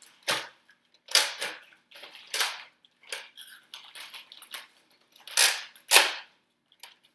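Sharp plastic clacks of toy Nerf blasters being primed and fired with no darts loaded: several short snaps at uneven intervals, with the loudest two near the end.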